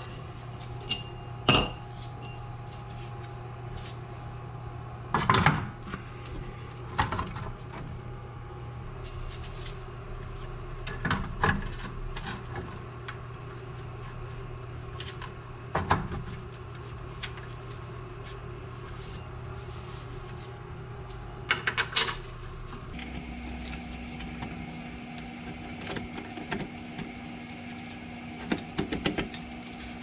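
Scattered metallic clinks and knocks of tools and parts being handled while a new rear wheel hub is fitted and its bolts started, over a steady low hum. About 23 seconds in, the hum gives way to a different, higher steady hum.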